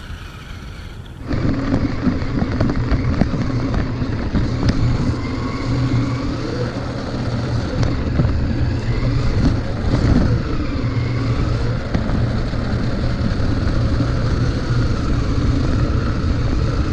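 Toy RC rock-crawler truck driving over concrete and rough ground, picked up by a camera mounted on the truck: its small electric motor and gearbox give a steady hum with a whine that rises and falls with speed, plus rattling over the surface. It starts suddenly about a second in, after quieter wind noise.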